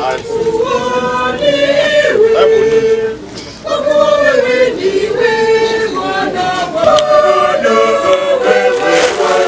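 A group of voices singing together unaccompanied in long, held notes, a graveside hymn, with a short break between phrases about three seconds in.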